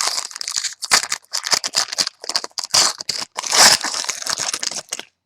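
Foil trading-card pack wrapper crinkling and being torn open, a dense run of crackles that stops near the end.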